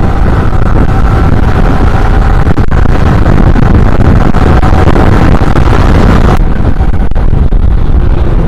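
Loud wind buffeting over a helmet-mounted microphone on a motorcycle opened up to speed, with the bike's engine beneath it; the wind overloads the mic, the problem that makes the rider's voice break up above about 70 km/h. The upper hiss drops away suddenly about two-thirds of the way through.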